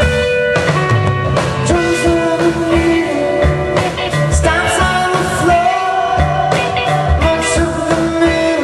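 Live rock band playing loudly, with guitar, bass and drums and long held notes over a steady beat.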